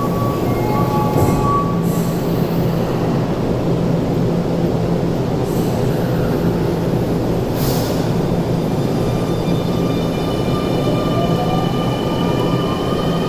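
Keio electric train at an underground platform, humming steadily while standing, then setting off about ten seconds in. Several tones from its traction motors climb together in a rising whine as it accelerates away.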